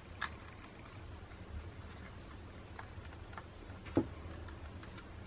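Phillips 00 precision screwdriver turning tiny screws out of a compact camera's body: scattered faint clicks and ticks, with one duller knock about four seconds in.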